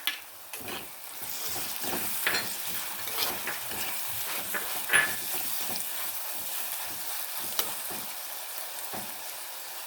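Chopped onion, shallots and tomato frying in oil in a pan, sizzling, while a spoon stirs and scrapes it with many short clicks. The sizzle gets louder about a second in.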